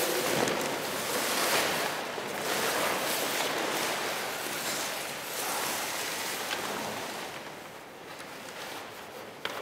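Sheets of paper rustling and crinkling in rising and falling swells as a dancer moves in them, quieter near the end, with a sharp crackle just before it stops.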